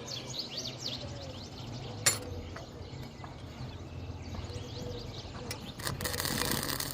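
Small birds chirping in quick short calls, with a single sharp click about two seconds in and a burst of hissing noise near the end.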